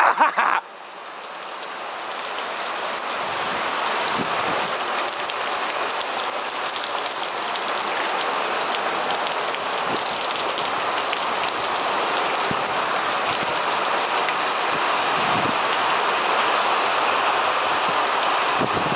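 Heavy rain pouring down steadily in a severe thunderstorm. It swells over the first few seconds, then holds at a constant downpour.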